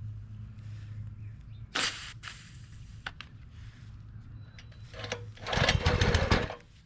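Small gas engine of a Simpson pressure washer running with a steady hum, then dying out about five seconds in: the engine is stalling. A loud, rough burst of about a second follows near the end.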